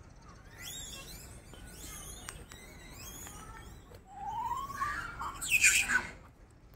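High-pitched animal calls: a run of quick chirps, then a rising squeal about four seconds in and a loud, shrill shriek near the end.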